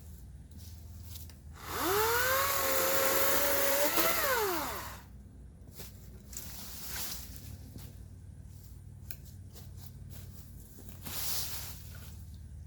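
EGO 56V battery chainsaw's electric motor run up once: a whine that rises quickly, holds a steady pitch for about two seconds, climbs briefly, then winds down and stops about five seconds in.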